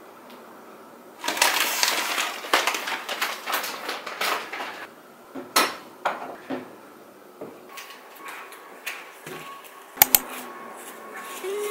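Household items being moved about on cupboard shelves: rustling of packaging and clinks of dishes, with scattered knocks and two sharp knocks close together near the end.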